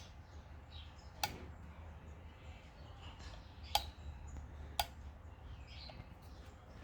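Four sharp, irregularly spaced clicks from handling an audio cable tester, over a low steady hum. The loudest click comes past the middle.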